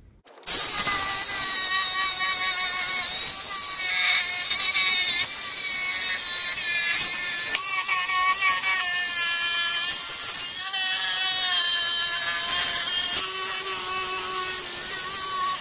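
Corded jigsaw with a metal-cutting blade sawing through a whiskey barrel's metal band. It starts about half a second in, and its motor whine wavers in pitch as the cut loads it.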